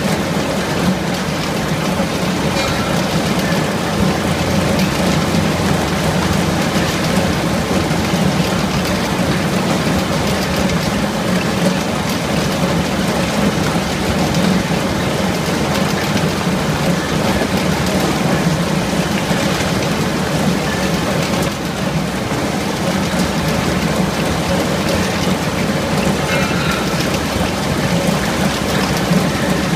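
Oblique-disc endive root lifter mounted on a hopper, running: a loud, steady, dense noise over a low hum, with no let-up.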